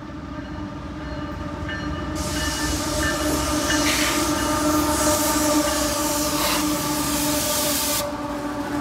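CSX GE diesel locomotives, an ES44AH leading an AC4400CW at the head of a freight train, approaching and passing close by. The engine and wheel noise builds to its loudest as the units go past. The rushing noise cuts off suddenly about eight seconds in.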